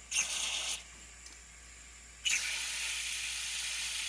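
Aerosol carburetor cleaner sprayed through its thin extension tube into the jet passages of a small-engine carburetor to clean them out. A short hiss comes first, then a longer steady hiss starts about two seconds in.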